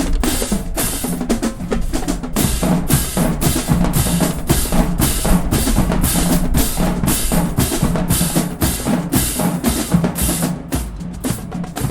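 Marching band drumline playing a cadence: drums striking a steady beat of about two to three hits a second, growing lighter and sparser a little before the end.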